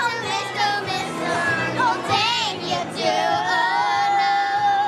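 Young girls singing along with loud dance music, one voice holding a long steady note from about three seconds in.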